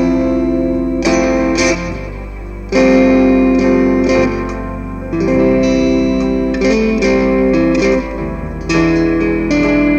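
Stratocaster-style electric guitar played through an amplifier: blues phrases of struck notes and chords left to ring, a new strike about every second.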